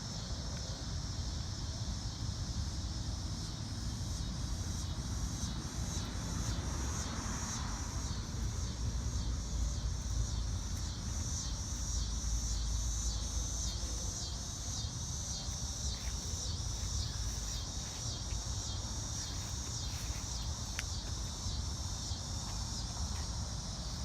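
Outdoor insects, crickets or similar, chirping in a steady, high, pulsing chorus over a continuous low rumble.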